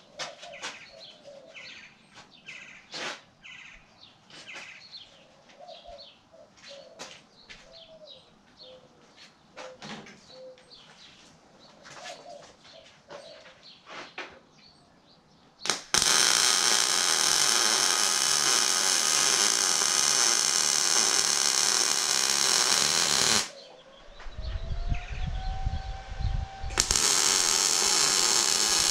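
Birds chirping, with scattered light clicks and taps, for about the first half; then arc welding starts with a loud, steady crackling hiss, stops for about three seconds, and starts again.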